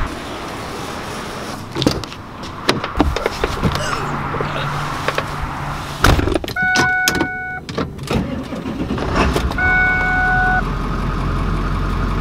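A truck door shuts about six seconds in and a warning chime sounds twice, each about a second long. Near the end, the 2000 Ford F-250's 7.3 L Powerstroke turbo-diesel V8 starts and settles into a steady idle, heard from inside the cab.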